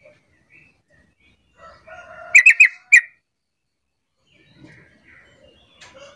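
Yellow-vented bulbul calling: a short bubbling phrase about two seconds in that ends in four loud, sharp chirps, and another phrase beginning right at the end.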